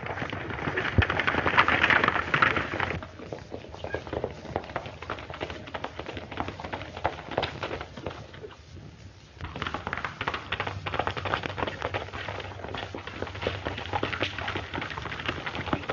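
Hoofbeats of horses galloping: several horses together at first, then a single horse. There is a short lull about halfway through before the clatter picks up again.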